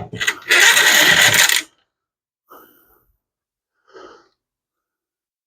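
Small metal dashboard parts clattering and rattling for about a second and a half as they are handled and set down, followed by two faint knocks.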